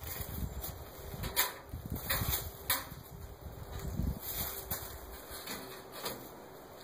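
Footsteps on leaf-strewn gravel, with a few sharp knocks, fading out after about four and a half seconds.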